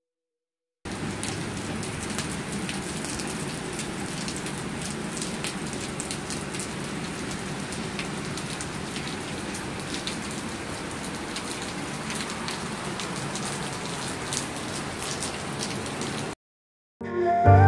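Steady rain falling on pavement, parked cars and shrubs: a dense even hiss speckled with small drop taps. It starts abruptly about a second in and cuts off shortly before the end.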